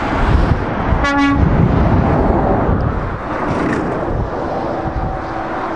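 Motorway traffic passing at speed, a steady rush of tyre and engine noise. About a second in, a vehicle horn gives one short toot.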